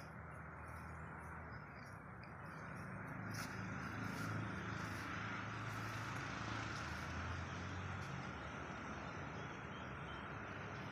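A motor vehicle's engine hum that grows louder from about three seconds in, over a steady outdoor background noise, with faint short high chirps.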